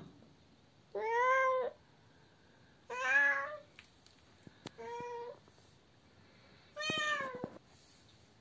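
A young female cat meowing four times, about every two seconds. Each call lasts around half a second and rises, then falls, in pitch.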